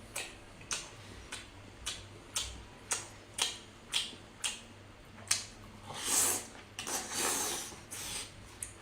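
Close-up chewing of octopus: sharp, wet mouth clicks about twice a second, then two longer hissing mouth sounds about six and seven seconds in.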